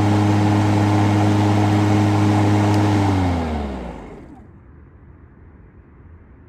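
EGO Select Cut battery lawn mower running steadily on turbo, then switched off about three seconds in, its pitch falling as the motor and blade spin down.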